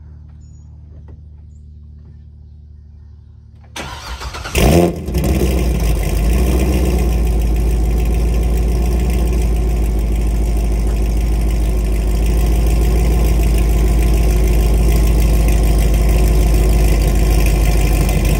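Supercharged LS3 V8 of a 2009 Corvette, breathing through longtube headers, a catless midpipe and Corsa Sport mufflers: the starter cranks about four seconds in, the engine fires with a loud flare, then settles into a steady idle.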